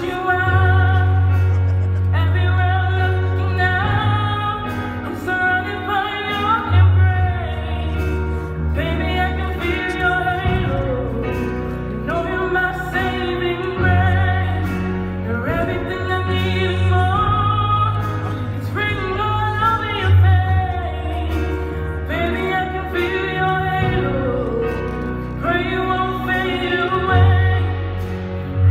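A musical number: singing over instrumental accompaniment, with a bass line that changes note every couple of seconds.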